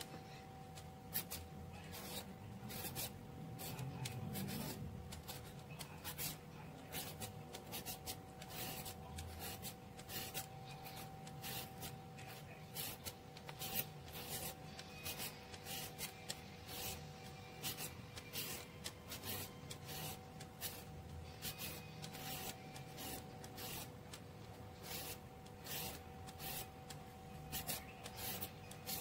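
Handheld julienne shredder scraping strips off a cucumber, a quick rasping stroke about once or twice a second, with a faint steady hum underneath.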